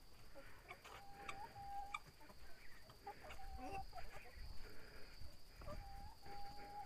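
A hen making short, level-pitched calls in three pairs, with crickets trilling steadily in the background.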